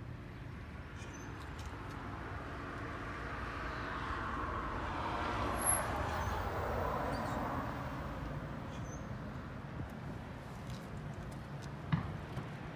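A car passing by: its road noise swells over a few seconds and fades, over a low steady rumble. A short knock comes near the end.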